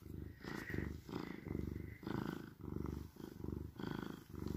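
Oriental shorthair cat purring while being stroked with a grooming glove. The purr comes in even phases, about two a second, as the cat breathes in and out.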